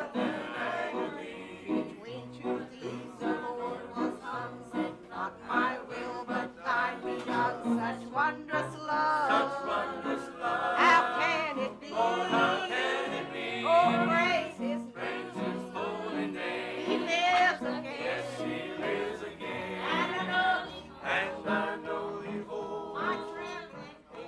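Gospel singing: voices singing a gospel song as music, with no spoken words.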